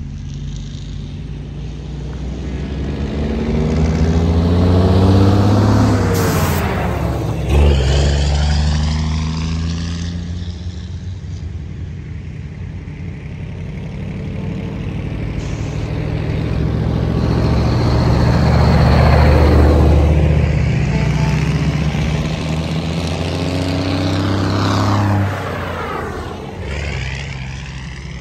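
Antique Brockway trucks' engines driving past one after another, three passes, each engine note dropping in pitch as the truck goes by.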